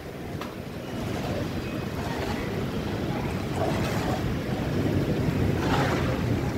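Thunderstorm wind gusting and buffeting the microphone, with heavy rain falling, a steady rushing noise that grows slowly louder.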